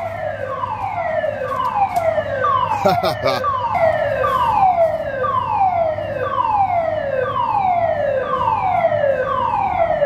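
Building emergency evacuation alarm sounding: a tone that slides down from high to low, repeating about once a second without a break. A few brief clicks sound about three seconds in.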